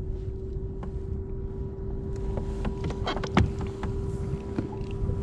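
Electric trolling motor on a bass boat whining at a steady pitch over a low rumble. From about two seconds in come scattered sharp clicks and a louder knock of handled gear.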